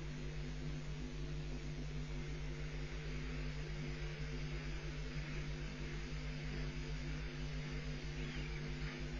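Steady electrical buzz and low hum over a constant hiss, the audio-line noise of a webcam feed; no stork calls or bill-clattering stand out.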